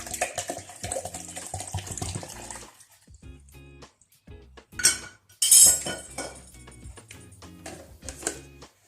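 Bottled water pouring into a blender jar for about two and a half seconds, then the clatter of kitchenware being handled, with sharp knocks about five seconds in, over background music.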